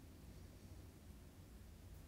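Near silence: faint room tone with a low steady hum.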